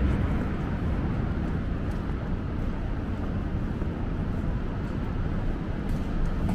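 Steady city street ambience: a constant low rumble of traffic.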